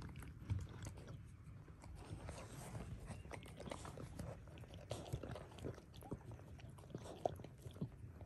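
Faint scratching, shuffling and small wet clicks of newborn puppies squirming in sand and a mother dog nosing and licking them, irregular throughout.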